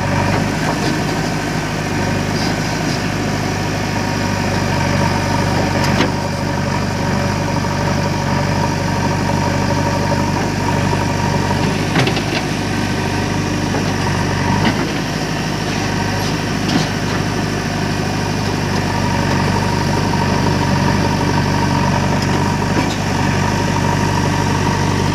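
Diesel engines of a backhoe loader and tractor running steadily, with a few short sharp knocks at intervals of several seconds.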